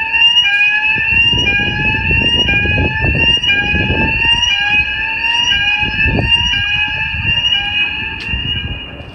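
Building fire alarm sounding its evacuation tone over the public-address speakers between spoken evacuation messages: a loud, fast-repeating rising sweep, about two a second, over a low background din. The tone stops near the end.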